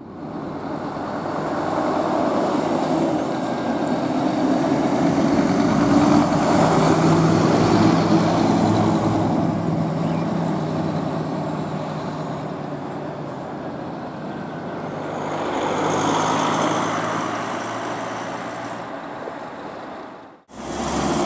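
Scania fire-brigade hook-lift truck's diesel engine running as it passes close by and pulls away, loudest about six seconds in and then fading. A faint high whistle rises and falls while it passes.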